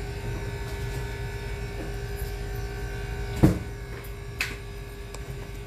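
Canning-jar lids sealing as freshly pressure-canned quart jars cool: a sharp pop about three and a half seconds in, then a higher, ringing ping about a second later. A steady electrical hum runs underneath.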